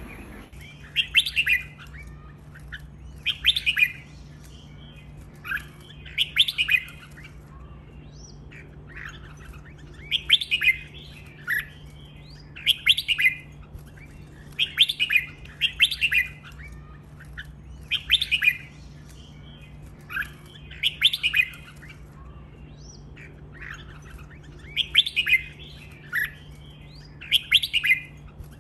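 Red-whiskered bulbul singing, one short song phrase after another every second or two, over a faint steady low hum.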